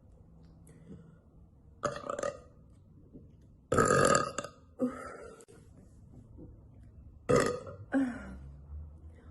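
A woman burping several times in a row: a short burp about two seconds in, a longer and louder one around four seconds, then two more near the end.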